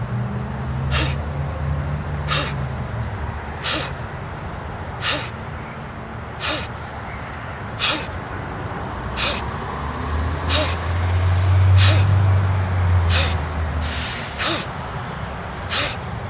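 A person exercising with a medicine ball, letting out a short, sharp exhale with each sit-up repetition, about one every one and a half seconds, a dozen in all. Under it a low rumble swells and fades about two thirds of the way through.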